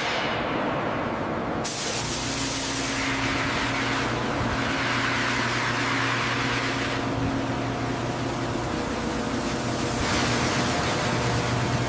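Hiss of paint spray guns. About two seconds in, the hiss is joined by the steady hum of electric rotary polishers buffing a steel hull.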